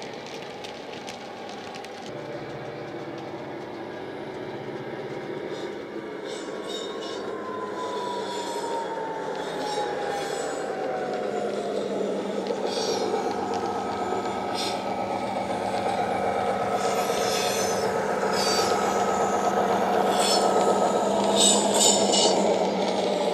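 Class 59 diesel engine sound, an EMD two-stroke V16, played by an OO-gauge model's DCC sound decoder through its small speaker. It runs steadily and grows louder as the model approaches. About a third of the way in the engine note drops in pitch, and light clicks and rattles from the moving train come and go in the second half.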